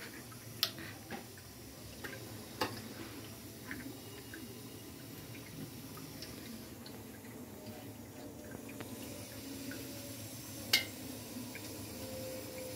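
Soup trickling and dripping through a strainer, with a few sharp clicks now and then.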